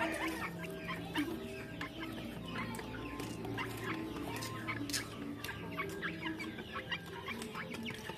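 Chickens clucking, with many quick, sharp clicks scattered throughout.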